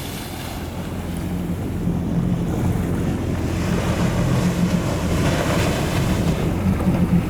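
Wind on the microphone over the rush of surf and water, with the low steady hum of a boat engine idling underneath; it grows slowly louder.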